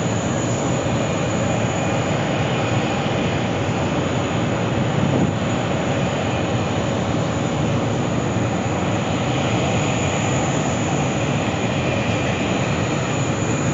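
Boeing 777-9's twin GE9X turbofan engines running steadily at taxi power: an even jet rush with a thin high whine on top.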